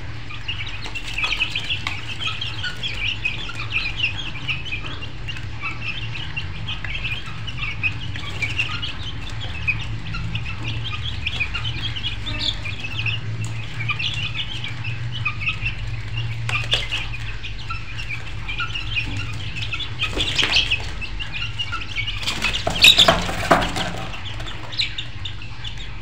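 A flock of birds chirping and calling continuously over a steady low hum, with louder flurries about 20 seconds in and again around 23 seconds.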